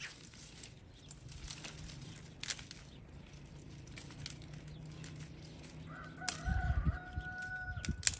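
A rooster crows once near the end, a long held call, over scattered snaps and rustles of dry twigs being handled.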